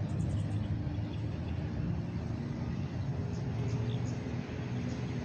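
An engine running steadily nearby, a low hum whose pitch drifts slightly.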